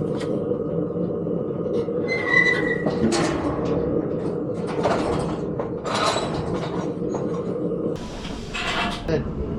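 Steady low rumble of a running vehicle, with several short rattles and clatters over it.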